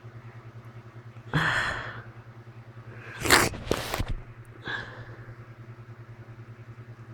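A person sneezing, brought on by cats: a gasping intake of breath about a second and a half in, then the loud explosive sneeze a couple of seconds later, followed by a short breath out. A steady low pulsing hum runs underneath.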